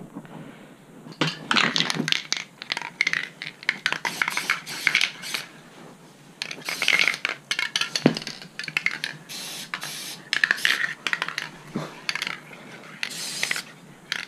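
Handling noise: a run of irregular rustles, knocks and light metallic clinks as things are moved about on a cardboard sheet.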